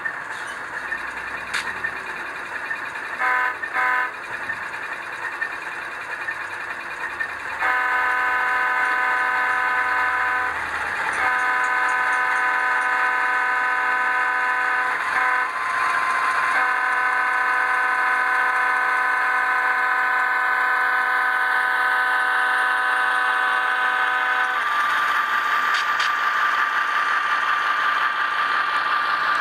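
Model diesel locomotive's onboard Tsunami sound decoder playing a GE diesel engine with a several-note air horn: two short toots, then the grade-crossing signal of long, long, short, long blasts. After the horn stops, the engine sound carries on with a steady whine.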